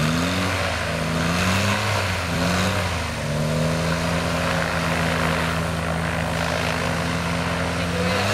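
Viking 130 hp aircraft engine, a Honda-based four-cylinder, running and driving the pusher propeller of a Dominator gyroplane as it taxis. The engine pitch rises at the start, wavers up and down over the first few seconds, then holds steady.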